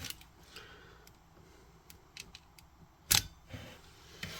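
Hand wire stripper working on a thin wire: a few faint ticks, then one sharp snap of the jaws about three seconds in.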